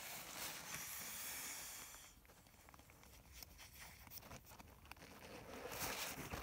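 Air hissing and thin nylon fabric rustling as an inflatable Therm-a-Rest sleeping pad is filled and handled. There is a hiss for about the first two seconds, then softer crinkling and small clicks, then another short hiss near the end.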